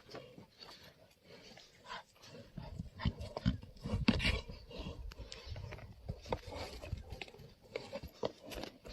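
Yak horns clacking and knocking together in irregular sharp strikes during a head-to-head fight, mixed with dull low thuds; the loudest clash comes about four seconds in.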